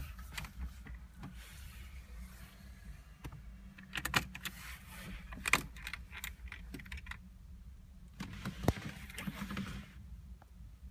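Car keys jangling and clicking, with scattered rustles and a few sharp clicks, the loudest about five and a half and nine seconds in, over a steady low hum.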